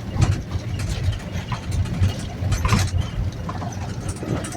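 Minivan engine and road rumble heard from inside the cabin: a steady low drone with scattered small knocks and rattles.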